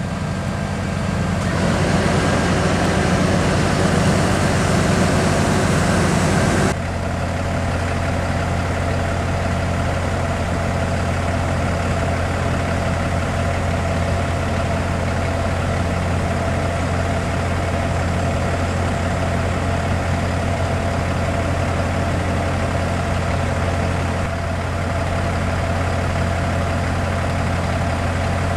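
Diesel fire apparatus idling steadily with a low hum. About seven seconds in, a louder layer cuts off suddenly, leaving the steady idle.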